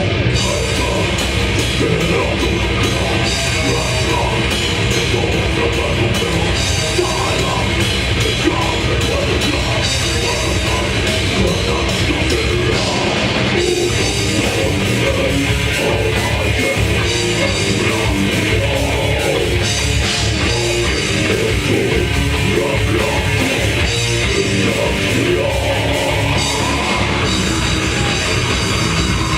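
Death metal band playing live: distorted electric guitars and bass over fast, dense drumming on a full drum kit, loud and unbroken.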